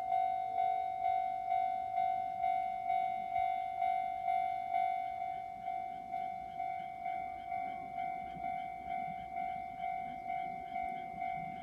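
Japanese railway level crossing's electronic warning bell ringing, a steady ding repeating a little under twice a second, each stroke dying away: the warning that a train is approaching. A faint low rumble grows under it in the second half.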